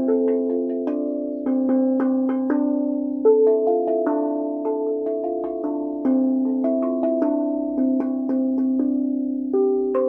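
Steel tongue drum tuned to A minor, struck with mallets: a run of pitched notes, about two a second, each ringing on under the next.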